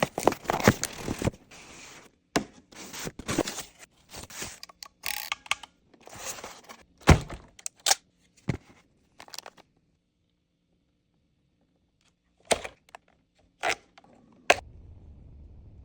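Unboxing handling: irregular scraping, rustling and thunks, with a few sharp knocks. After a near-silent gap come three separate sharp clicks near the end.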